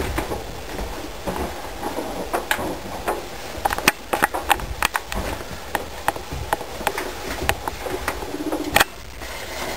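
A ground squirrel chewing: a run of sharp, irregular clicks and crunches, thickest in the middle, with a loud snap near the end.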